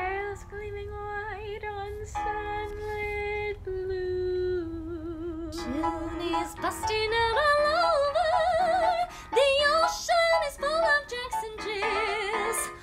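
Women's voices singing a musical-theatre ensemble number in long held notes with vibrato. About halfway through more voices layer in and the singing grows louder and busier.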